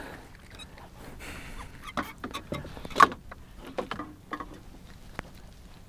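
Small scattered knocks and clicks of a freshly caught perch and the jig being handled, with the sharpest knock about three seconds in.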